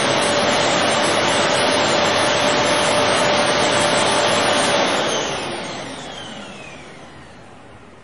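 Vacuum cleaner running steadily with a whining motor, then winding down about five seconds in, its whine falling in pitch as the motor spins down.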